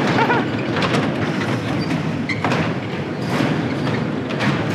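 Bumper cars colliding: several knocks and thuds over a steady din of the running ride.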